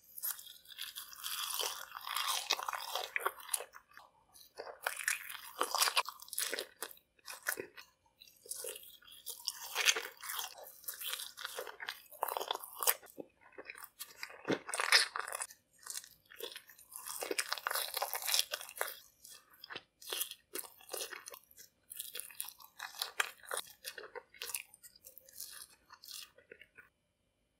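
Biting and chewing large marshmallows, in bouts of a few seconds separated by short pauses.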